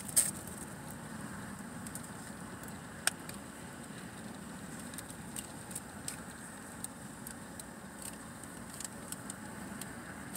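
Steady low hum inside a parked car with its engine running. Light clicks and rustles come from a paper food wrapper and plastic spoon being handled, with a sharp tick about three seconds in.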